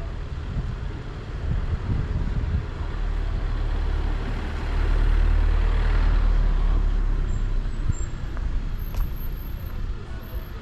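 Low engine rumble of a passing motor vehicle, swelling to its loudest about halfway through and easing off near the end.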